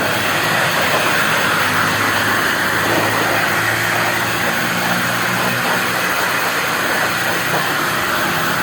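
An electric blower running steadily with a loud, even rush of air, used to clean dust out of an amplifier. It switches on suddenly at the start, with a low motor hum under the rush.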